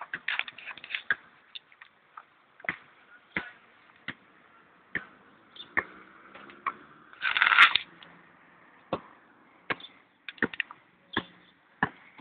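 A basketball bouncing on an outdoor court, a string of irregular sharp thuds. About seven and a half seconds in comes a louder, longer burst of noise.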